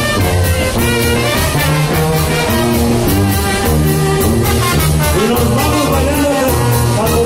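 A live brass band playing upbeat dance music, a sousaphone carrying the bass notes in a steady rhythm under the horn melody.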